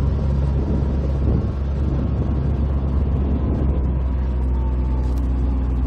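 Off-road buggy's engine running steadily as it drives along, heard from on board the vehicle.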